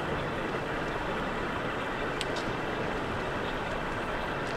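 Steady background hubbub of a large, busy exhibition hall, with a faint click about two seconds in.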